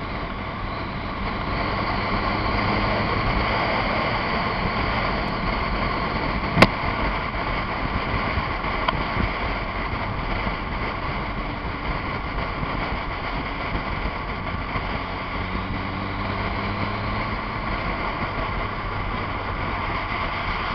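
Motorcycle engine running steadily at motorway cruising speed under a constant rush of wind and road noise. A single sharp click comes about six and a half seconds in.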